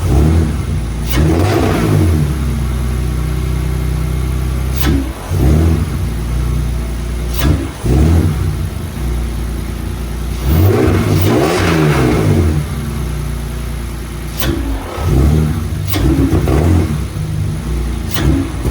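BMW E46's inline-six engine idling and being blipped repeatedly, its pitch rising and falling with each of about eight short revs, the longest near the middle. The blips are a test of whether the engine still bogs when the throttle is opened.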